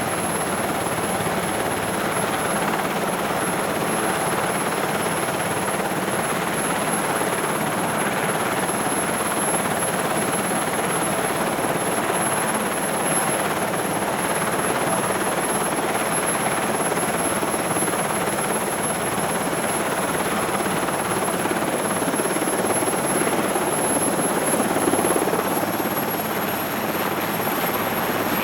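SH-3 Sea King helicopter's twin turboshaft engines and rotor idling, heard from inside the cabin: a steady dense roar with a thin high turbine whine, swelling slightly near the end.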